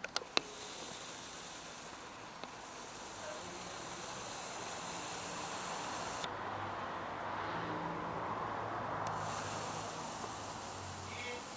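A couple of sharp clicks, then the Canon SX40 HS's lens zoom motor whirring steadily as the lens zooms in, picked up by the camera's own microphone.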